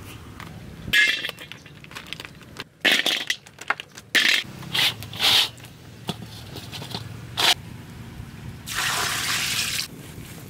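Water splashing and sloshing in several short separate bursts, with scraping, then about a second of steady pouring or rushing water near the end.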